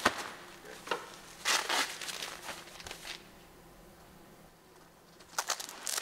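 Nylon straps and fabric of a bulletproof backpack plate carrier rustling and rubbing in short bursts as it is handled on the body. After a quiet pause of about two seconds, a quick run of sharper rustles and clicks comes near the end.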